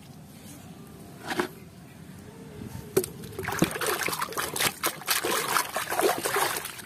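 Water sloshing and splashing in a plastic basin as a muddy toy is swished and scrubbed in it, faint at first and busier from about three seconds in.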